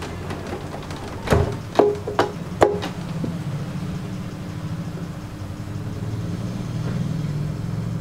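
Four sharp clicks in quick succession from about a second in, each with a brief ring, as cables are handled at the input jacks of a Wisdom M-Live 8 analog mixer. A steady low hum runs underneath.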